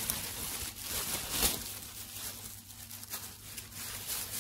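Clear plastic bag crinkling and rustling as it is handled and wrapped around a pair of binoculars, with a sharper crackle about one and a half seconds in.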